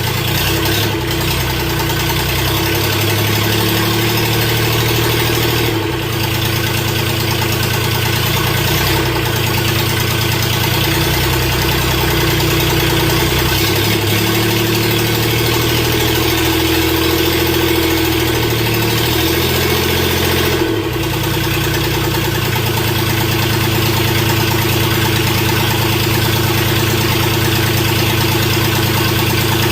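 Freshly rebuilt diesel engine of a Mustang skid steer running steadily at idle, with a brief dip in its note about 6 seconds in and again about 21 seconds in.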